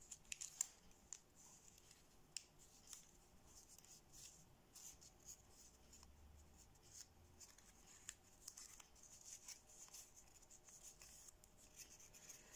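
Faint crinkling and light ticks of thin kami origami paper being pressed and creased between the fingers while an outside reverse fold is formed.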